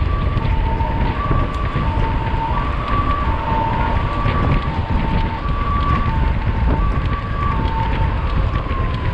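Wind buffeting the microphone of a camera on a moving mountain bike, a steady low rumble. Behind it a two-tone siren alternates high and low, about one change every 0.7 s, and its tone slides downward near the end.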